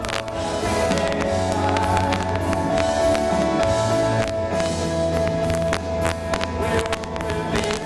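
Live rock band playing: electric guitar over a steady bass line, with drum and cymbal hits.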